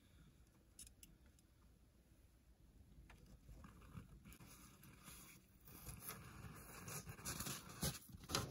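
Faint rustling and scraping of a person moving in snow and brush, with a few light clicks; it grows louder in the second half, with sharper scuffs and crunches near the end.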